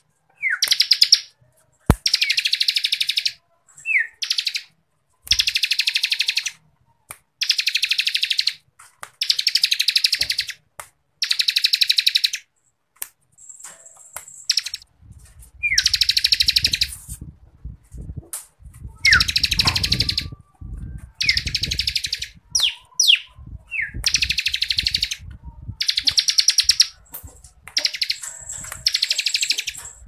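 Bar-winged prinia (ciblek kristal) singing its 'ngebren' song: rapid buzzing trills about a second long, repeated every second or two, with short downward chirps between them. A low rumble runs underneath for several seconds midway.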